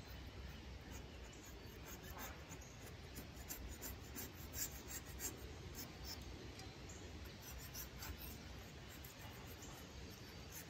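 Razor blade clamped in vise grips scraping old head gasket material off the deck of a tractor engine block, in short, irregular scratching strokes.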